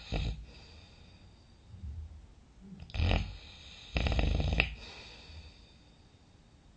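A person snoring in sleep: a brief snort just after the start, then a snore about three seconds in and a longer one about a second later, with quiet pauses between.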